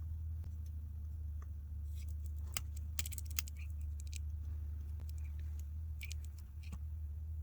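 Light clicks and crinkling from small phone parts and tape being handled during reassembly, in a cluster about two seconds in and again about six seconds in, over a steady low hum.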